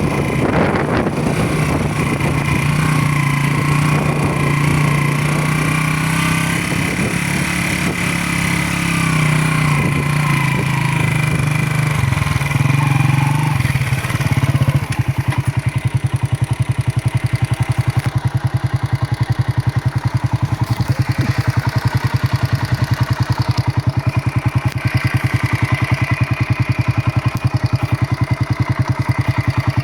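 Motorcycle engine running steadily, then about halfway through settling into an even, rhythmic idle.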